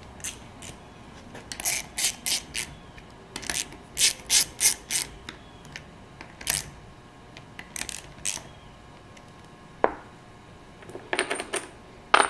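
Small hand ratchet clicking in short irregular bursts, with pauses between, as bolts are run in on a refrigeration compressor.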